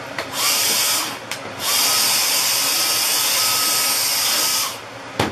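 Cordless stick vacuum switched on in two runs, a short one about half a second in and a longer one from about a second and a half to near the end, with a steady high whine over a loud hiss, picking up carbon-fibre cutting dust. A sharp click comes just after it stops.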